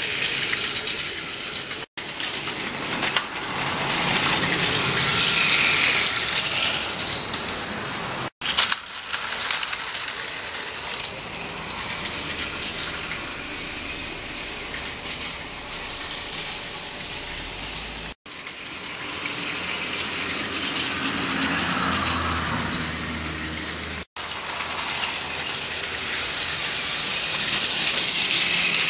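Battery-powered Plarail toy train's small geared motor whirring and its plastic wheels clattering along plastic track. The sound swells louder several times as the train passes close by and breaks off for an instant at several points.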